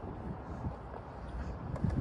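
Outdoor ambience dominated by wind buffeting the microphone: an irregular low rumble that rises and falls in gusts, with a few faint ticks.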